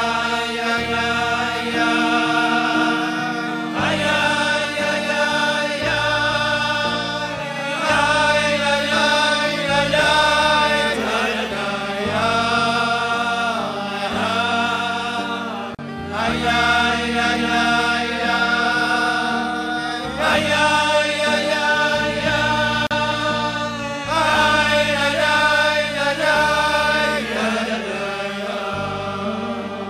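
Men's voices singing a slow Hasidic melody together over a band accompaniment, with a bass line stepping beneath the held, sliding sung notes. The music fades in at the start.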